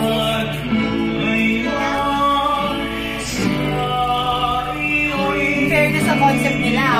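Male vocal group singing a slow Tagalog ballad over strummed acoustic guitars, with long held notes.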